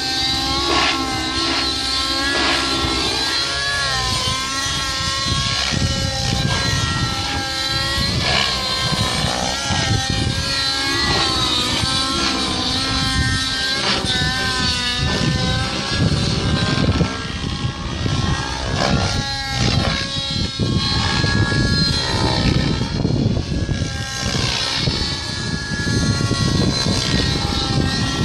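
Radio-controlled helicopter flying aerobatics overhead, its motor and rotor whine wavering up and down in pitch as the rotor speed and load change through the manoeuvres. Gusty wind noise rumbles on the microphone underneath.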